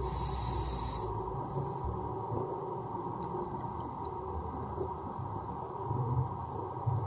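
Muffled underwater rumble heard through an action camera's waterproof housing, with a brief hiss in the first second.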